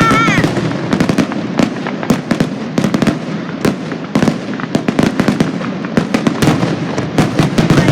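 Fireworks going off in a rapid, continuous barrage: many sharp bangs and crackles a second over a steady rumble.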